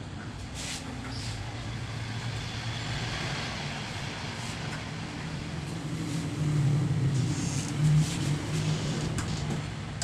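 A motor vehicle's engine running steadily, growing louder from about six seconds in, with a few light clicks over it.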